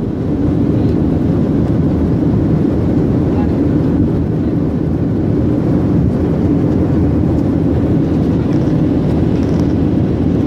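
Steady low roar of an airliner's jet engines and rushing air, heard from inside the passenger cabin during the climb after takeoff.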